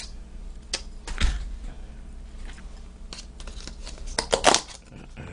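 Scattered clicks and light taps of chopsticks against tableware while eating, with the loudest little cluster of clicks about four seconds in.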